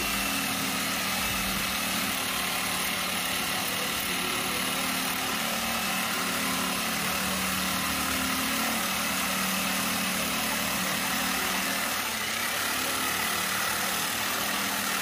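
Electric jigsaw running steadily as its blade cuts through a wooden board.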